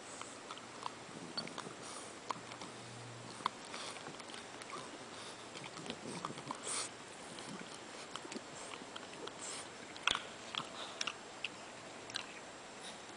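French bulldog puppy licking and mouthing at a shag rug: a run of small wet clicks and smacks. The loudest click comes about ten seconds in.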